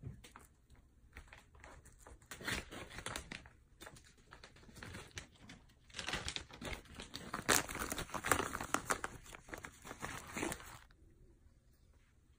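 Crinkling and rustling of a snack packet being handled, in irregular bursts, busiest in the second half and stopping about a second and a half before the end.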